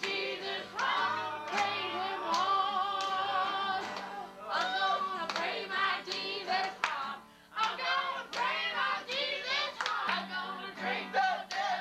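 A group of voices singing a lively praise song together, with hands clapping along on the beat about twice a second.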